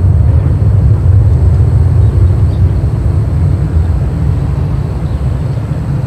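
Aircraft engine noise at an airfield: a loud, steady low rumble that eases off slightly toward the end.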